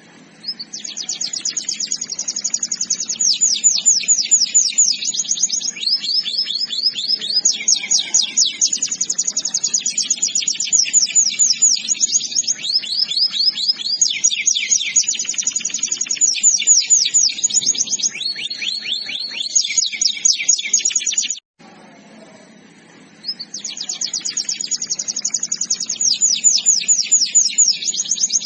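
Domestic canary singing in long trilled tours, each a rapid run of one high note repeated many times a second, one tour switching straight into the next. The song cuts off suddenly about two-thirds of the way through and starts again a couple of seconds later.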